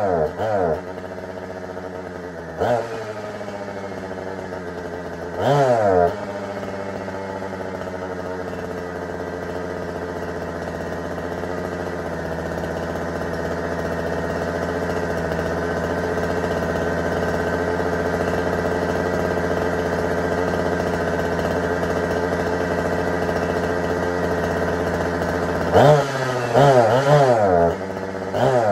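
Husqvarna 455 Rancher chainsaw's two-stroke engine idling steadily, with short revs in the first few seconds and several quick throttle blips in the last three seconds. The saw is one whose owner reports it bogs down and won't rev well.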